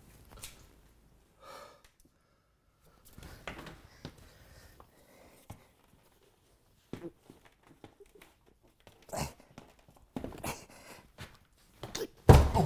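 Scattered rustles and soft knocks of hiking boots being pulled on and laced, with a couple of effortful breaths, and a loud thump near the end.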